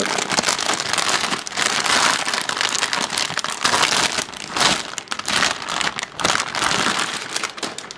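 Metallised anti-static shielding bag crinkling and crackling continuously as a motherboard is worked out of it, with many sharp crackles.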